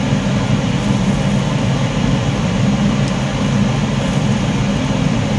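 Steady low hum and rush of a ventilation fan, constant in level, with an even hiss above it.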